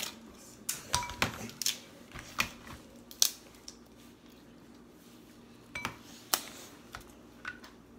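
Snow crab legs being snapped and picked apart by hand, the shells cracking in sharp, irregular clicks, with a fork clicking against the shell and tray. The loudest crack comes about three seconds in.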